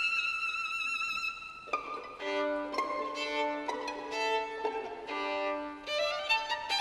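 Solo violin with ensemble accompaniment in a concert piece: a high violin note held with vibrato, then sustained chords in a lower register take over about two seconds in, and near the end a phrase climbs upward.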